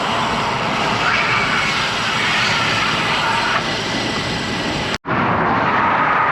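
Steady rush of wind and road noise on a bicycle-mounted GoPro's microphone while riding along a road with traffic. It cuts out for an instant about five seconds in, then resumes.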